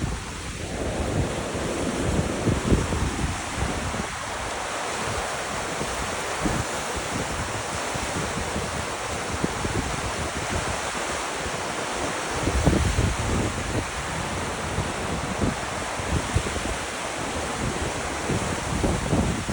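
River water rushing steadily, with wind buffeting the microphone in low gusts about two seconds in, around twelve seconds in, and near the end.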